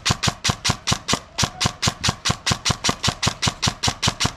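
Airsoft gun firing a steady string of sharp shots, about five to six a second.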